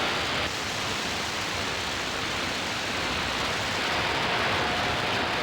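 CB radio receiver hiss on the 27 MHz band, a steady rush of static with the squelch open while waiting for a reply. A faint steady whistle comes in about four seconds in.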